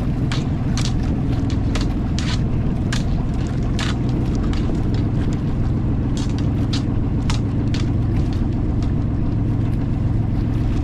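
Small fishing boat's engine running steadily with a low hum, and irregular short sharp slaps over it.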